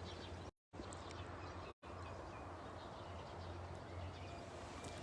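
Faint outdoor ambience: a steady low rumble with a few faint bird calls. The sound cuts out completely twice, briefly, about half a second in and again just before two seconds in.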